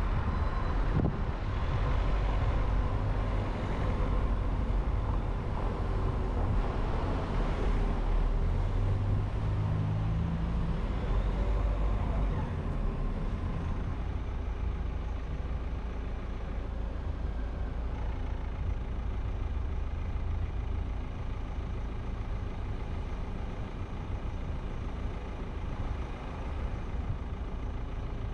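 Road and traffic noise from a car driving through city streets: a steady low rumble of engine and tyres, heavier for the first dozen seconds, then easing slightly.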